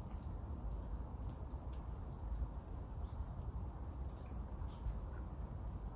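Small birds chirping now and then, short thin high calls, over a steady low background rumble.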